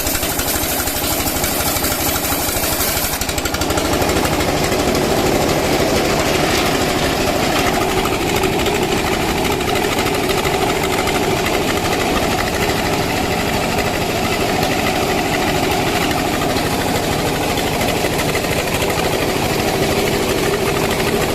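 Sawmill machinery running steadily: an engine-driven wood saw with a fast, rattling pulse. About three and a half seconds in the sound thickens and grows a little louder, then holds steady.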